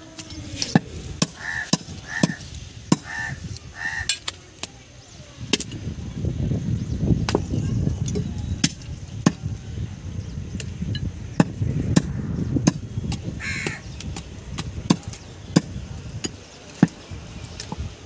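A large butcher's knife chopping goat meat on a wooden log block: sharp, irregular knocks all through. A bird calls four times in the first few seconds, and a low rumble comes up in the middle and fades.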